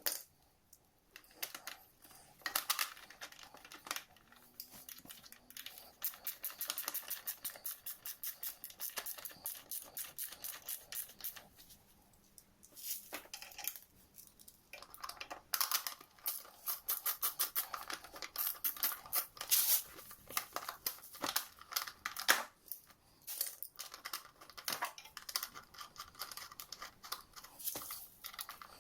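Metal hand tools working on a scooter engine during reassembly: runs of rapid, even clicking with short pauses and a few louder knocks.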